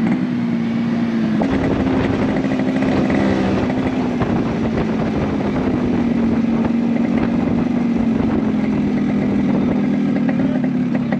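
Small motorcycle engine of a tuk-tuk running under way, heard from the passenger seat: a steady droning hum that rises a little in pitch about a second and a half in and eases back down a few seconds later.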